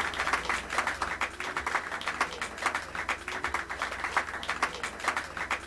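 Audience applauding, with many hands clapping in a dense, steady patter.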